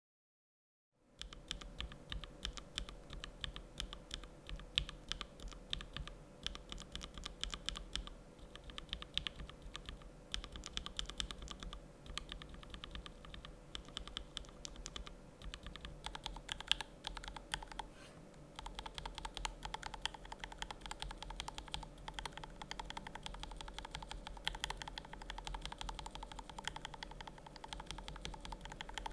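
Typing on an Alice-layout mechanical keyboard, a fast, continuous run of key clacks starting about a second in. Its switches were lubed unevenly, so the keys sound different from one another.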